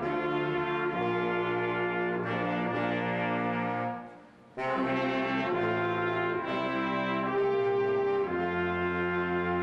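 A small band of saxophones, trumpet, sousaphone and other brass plays slow, held chords. About four seconds in, the chord stops for half a second between phrases, then the band comes back in.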